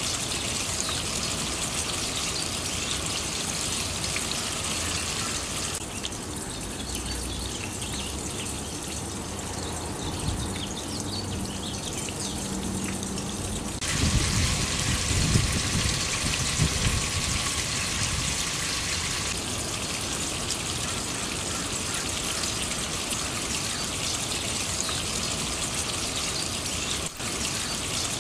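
Water running down a copper cup rain chain: a steady rush of trickling and splashing as it spills from cup to cup, with a few louder low splashes about halfway through.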